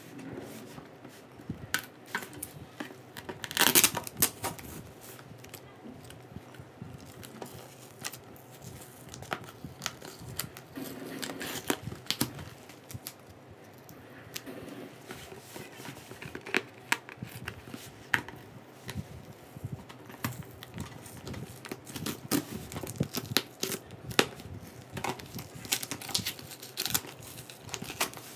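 A taped cardboard shipping box being opened by hand: tape being peeled and torn, and cardboard scraping, in irregular bursts. The loudest tear comes about four seconds in. Plastic packaging crinkles near the end.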